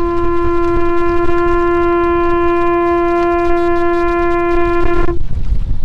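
Conch shell trumpet (Hawaiian pū) blown as the outrigger canoe comes in to the beach: one long, steady note that stops about five seconds in, with wind and water noise underneath.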